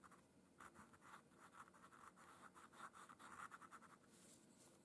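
Faint scratching of a Faber-Castell Pitt pastel pencil on Clairefontaine Pastelmat paper: many short, quick strokes in a row that stop about four seconds in.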